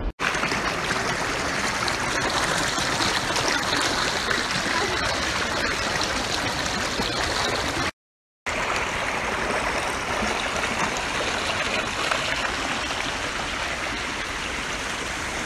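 A stream rushing steadily over rocks. The sound cuts out for about half a second around eight seconds in.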